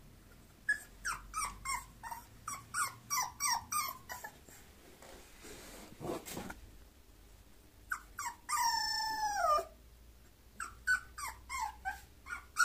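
Bulloxer puppy whimpering: a quick run of short, high whines, then one longer whine that slides down in pitch about eight and a half seconds in, then more short yips near the end.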